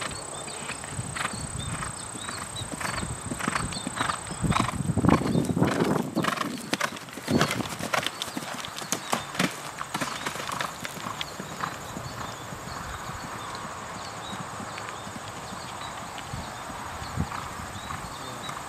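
Hoofbeats of a Thoroughbred horse cantering on grass: a run of dull thuds, loudest and closest between about four and eight seconds in, then fainter as the horse moves away.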